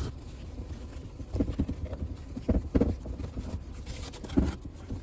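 Scattered light knocks and taps, about five irregularly spaced, with faint handling noise between them, as a refrigerator's doors are wiped down and handled.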